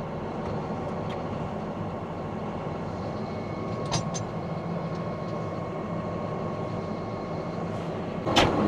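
Claas 850 tractor's diesel engine idling steadily, with a couple of light metallic clicks about four seconds in and one sharp clunk near the end.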